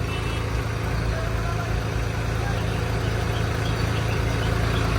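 Vehicle engine idling steadily at low revs with an even low hum, held up in a traffic jam.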